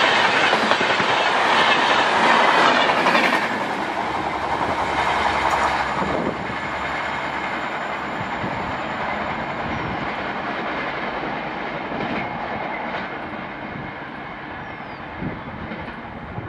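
Express train of LHB passenger coaches running past at speed, a loud rush of wheels and rail noise. About three and a half seconds in it drops sharply, then fades steadily as the train pulls away.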